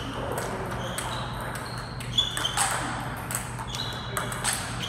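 Table tennis rally: the celluloid-type plastic ball clicking off the bats and the table in an uneven run of about two hits a second, many clicks leaving a short high ring, as flat forehand slaps are played.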